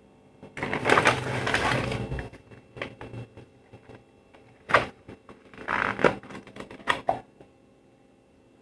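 Craft items and their packaging being handled during an unboxing: a stretch of rustling and crinkling, then a series of sharp clicks and taps. It falls quiet about seven and a half seconds in.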